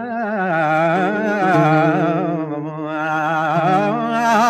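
Flamenco-style singing (a fandango): one voice holding a long, ornamented phrase that wavers up and down, over steady backing notes.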